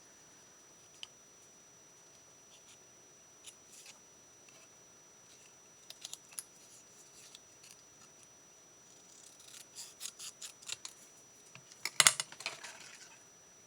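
Scissors snipping cardstock: a few scattered snips, then a quick run of cuts about nine seconds in, with the loudest cuts near the end.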